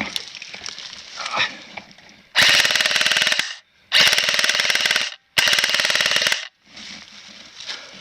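Airsoft gun firing on full-auto in three long bursts of rapid shots, each about a second long, with short pauses between them.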